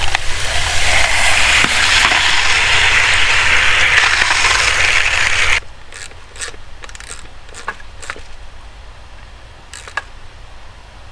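Water rushing through a poultry-house drinker water line: a loud, steady hiss that stops abruptly about five and a half seconds in, followed by a few faint clicks and ticks.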